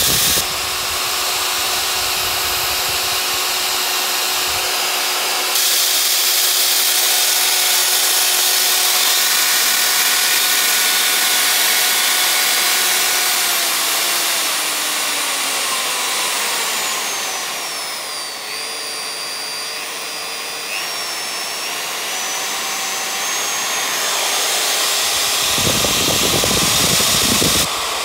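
Makita RP2303FC 2100 W plunge router's motor running at high speed with a steady whine. About halfway through its pitch falls and the sound drops a little, then the whine climbs back up, as the variable-speed control is turned down and back up. A short low rumble comes near the end.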